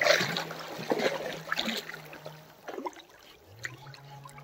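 Water splashing and trickling around a swimming Labrador puppy, busiest in the first couple of seconds and then dying down to scattered drips.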